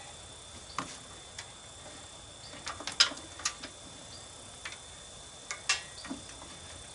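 Scattered light clicks and knocks at irregular intervals, the loudest about three seconds in: tools and parts being handled while a riding mower's engine is being removed.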